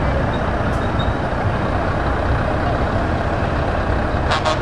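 Heavy truck tractor units' diesel engines running steadily as the trucks drive past slowly in a line, with a brief hiss near the end.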